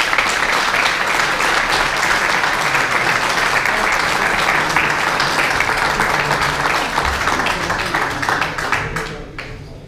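Audience applauding: many hands clapping together in a dense, steady patter that tails off near the end.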